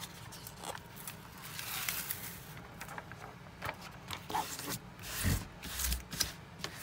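Rustling and scraping of a diamond-painting canvas and its clear plastic cover sheet being handled on a table, with a few small clicks. A couple of low bumps about five seconds in come from the recording phone being moved.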